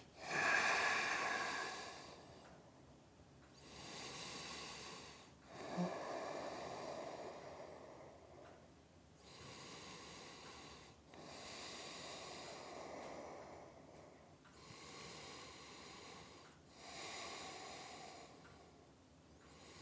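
A man's slow, deep breathing: long breaths in and out, about seven in all, each lasting one to two seconds with short pauses between.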